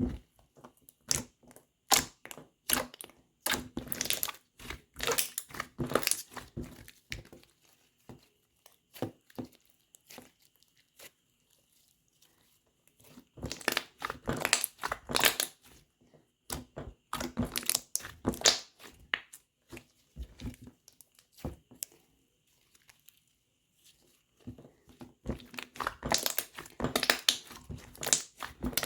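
Slime being squished and pressed by hand, crackling and popping in dense runs with short pauses between.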